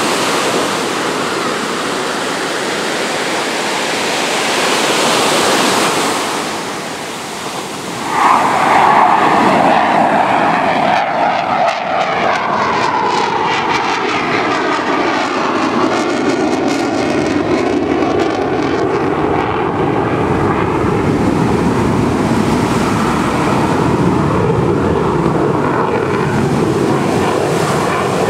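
F/A-18 Hornet's twin jet engines in a loud, steady roar that swells sharply about eight seconds in, with a whine that falls steadily in pitch as the jet passes and then keeps on roaring as it pulls away.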